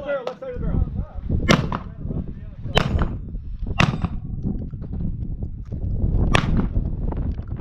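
Shotgun firing four shots, each a sharp crack: three in quick succession about a second apart, then a fourth after a pause of about two and a half seconds.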